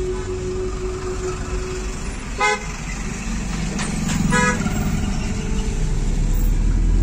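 Vehicle horn sounding two short toots about two seconds apart, over the steady low rumble of a car driving, heard from inside the cabin.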